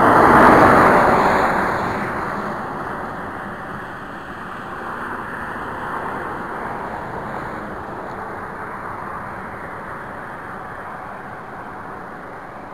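Freeway traffic: a vehicle passes close, loudest about half a second in and fading over the next few seconds, then a steady rush of road noise from the traffic.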